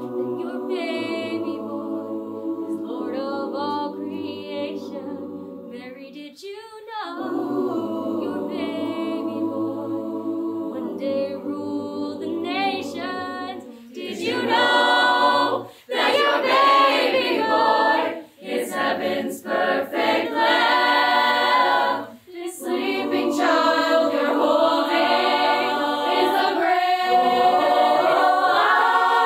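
Mixed high school choir singing sustained chords in harmony, softer at first and louder from about halfway, with a few brief breaks between phrases.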